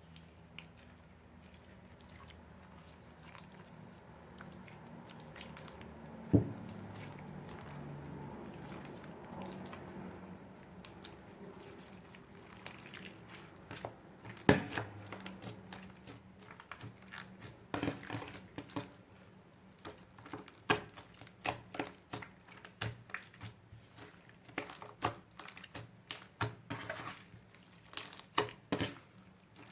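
Hands working a clear glitter slime: quiet squishing at first with one sharp knock, then from about halfway a quick, uneven run of sticky clicks and pops as the slime is pressed and stretched.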